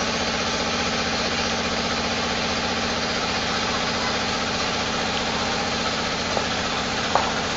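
A large engine idling steadily, running at an even, unchanging speed.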